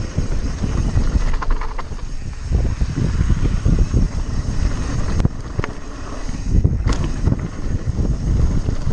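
Cross-country mountain bike descending a downhill trail: wind buffeting the microphone over continuous low tyre rumble and rattling, with a few sharp clicks or knocks about five to seven seconds in.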